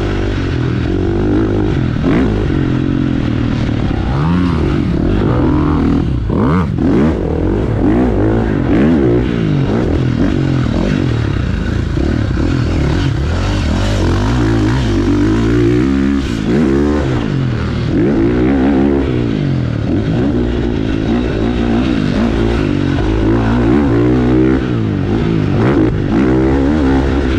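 KTM motocross bike's engine revving hard and backing off over and over, its pitch climbing and dropping every few seconds as the rider works the throttle around the dirt track.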